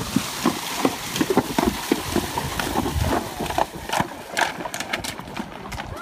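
Horses wading through a shallow, stony river: a steady run of irregular splashes and knocks from their hooves in the water.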